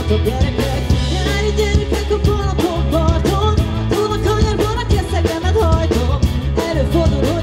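Live pop-rock band playing an upbeat song: a drum kit beat with electric guitar and bass under a woman singing lead into a microphone.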